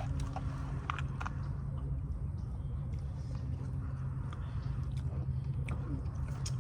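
Close-up eating sounds: chewing and mouth clicks from someone eating seafood, with scattered short sharp clicks over a steady low background hum.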